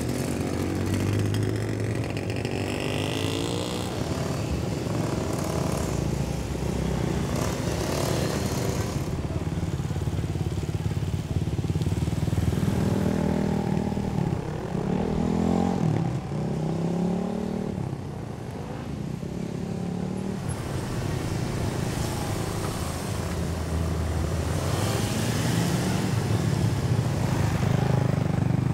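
Motorcycle engines running and revving on and off as riders weave slowly through a cone course. The pitch rises and falls again and again, most clearly about halfway through.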